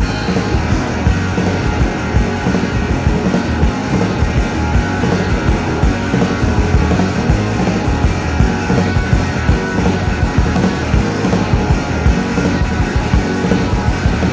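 Rock band music coming in abruptly at full volume: electric guitar, bass and drums playing a steady beat, without vocals.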